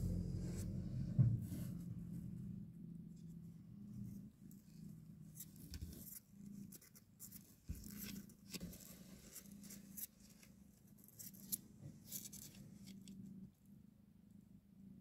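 Faint small rustles and soft clicks of newborn kittens suckling and shifting against their nursing mother cat on cardboard. A gong-like musical tone dies away in the first second or two.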